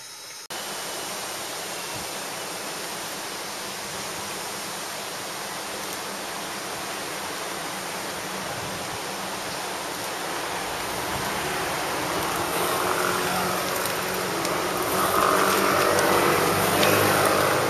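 Steady rushing of a mountain river running below a suspension bridge. In the last few seconds it grows louder as bicycles pass close.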